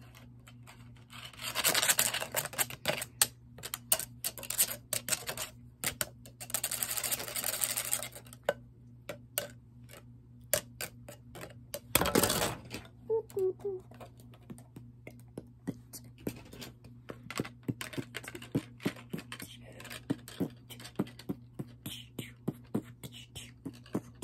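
Plastic Lego bricks clicking and clattering as pieces are handled and pressed together, with two stretches of dense rattling a couple of seconds long near the start and one louder knock about halfway through. A steady low hum runs underneath.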